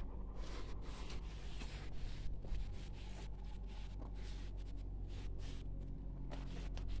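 Quiet scuffing footsteps and rustling handling of a handheld phone as someone walks alongside a parked motor grader, over a faint low hum.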